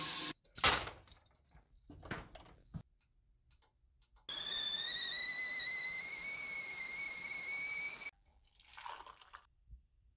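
Stovetop whistling kettle whistling at the boil for about four seconds, its pitch rising slightly, then cutting off suddenly. Before it, the tap stops running and a few brief knocks come from handling the kettle.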